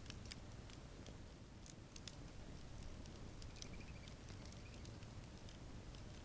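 Wood campfire crackling softly, with scattered sharp pops and ticks over a low steady rumble. A faint, brief high warble sounds about three and a half seconds in.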